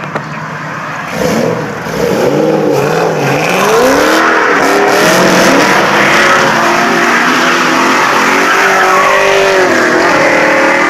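A car's engine revving hard in several rising and falling sweeps, then held at high revs with the tyres squealing in a long, wavering squeal.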